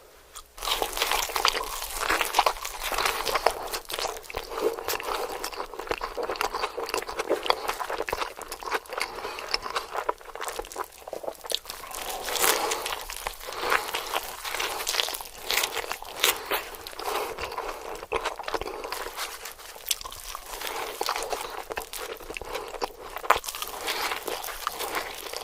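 Close-miked eating sounds of spicy instant noodles: wet chewing and crunching, a dense run of small clicks and crackles that starts about half a second in.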